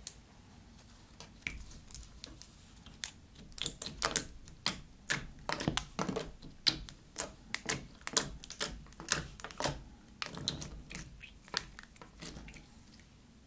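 Purple glossy slime clicking and popping as long nails poke and press into it: a fast, irregular run of sharp little clicks, few at first, thickest in the middle, and stopping shortly before the end.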